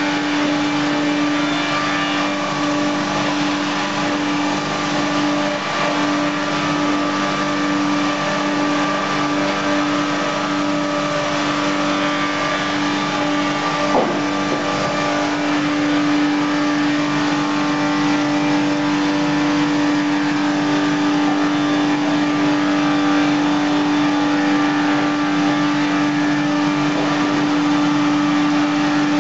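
FBST-220 milling-squaring sawmill line running: electric motors, cutter heads and sawdust-extraction fans making a loud, steady hum over a broad whirring noise. One sharp click about halfway through.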